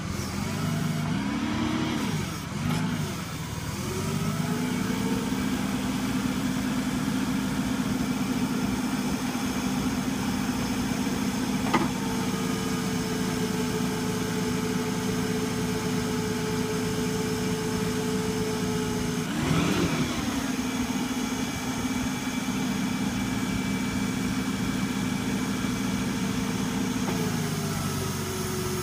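Toyota forklift engine revving up and down a few times, then held at a steady raised speed while the hydraulic clamp attachment is worked. There is one sharp click about twelve seconds in and a brief dip in engine speed about two-thirds of the way through, and the engine drops back towards idle near the end.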